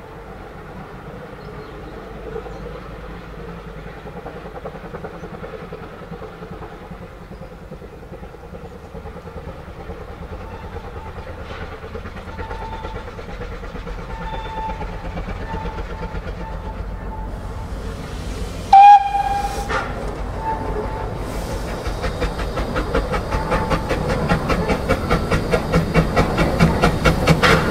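Vale of Rheidol Railway 2-6-2T narrow-gauge steam tank locomotive approaching with its train: faint and distant at first, then a short, loud whistle blast about two-thirds of the way through, followed by its exhaust beats growing steadily louder as it draws near.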